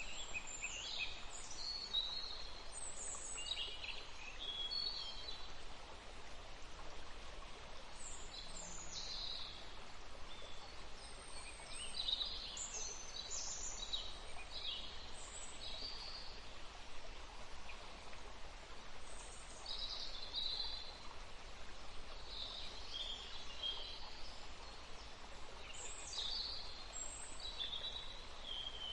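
Songbirds chirping and singing: many short, high chirps and quick whistled notes, in scattered bursts from several birds, over a steady background hiss.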